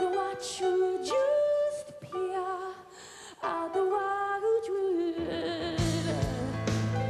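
Live female vocal sung with vibrato over grand piano chords. About five seconds in, the band's bass and drums come in under the voice.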